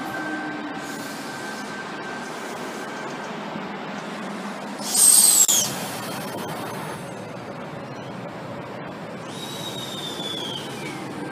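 V set double-deck electric train pulling away, a steady running noise with a faint hum early on. About five seconds in, a brief loud whistle falls sharply in pitch. Near the end a softer whistle glides down.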